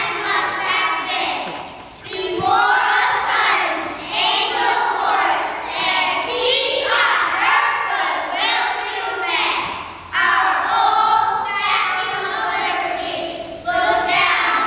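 Young children's choir singing together in sustained phrases, with short breaks where new phrases begin about two seconds in, about ten seconds in and near the end.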